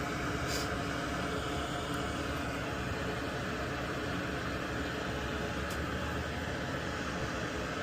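Steady fan-like whir and hiss of a small motor running, with a couple of faint ticks.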